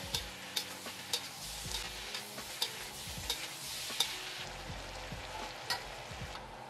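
Spatula turning chicken and mixed vegetables in a hot wok: a steady sizzle of frying, with irregular clacks and scrapes of the spatula against the pan about once or twice a second.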